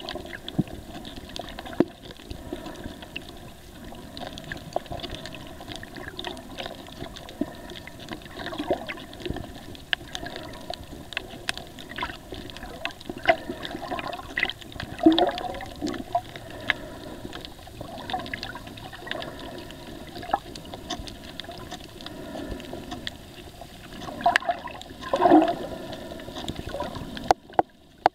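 Underwater sound of a reef picked up by the camera: a steady muffled water hiss with scattered sharp clicks and crackles, and louder surging water sounds about 15 and 25 seconds in.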